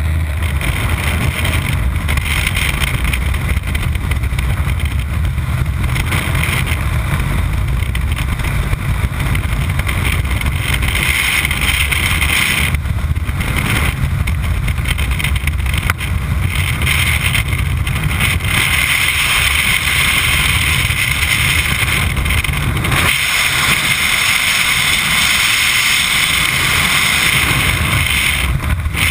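Loud, steady rush of freefall wind buffeting a body-mounted camera's microphone, with a change in its tone about three quarters of the way through.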